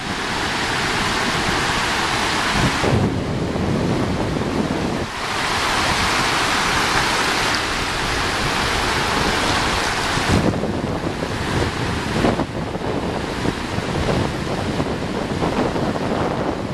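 Ocean surf breaking and washing up the beach, its hiss swelling and easing every few seconds, with wind buffeting the microphone.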